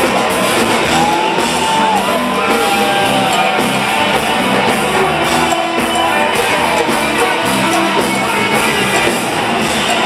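Live rock band playing loud: electric guitar, bass and drums, with a gliding melodic line about a second in.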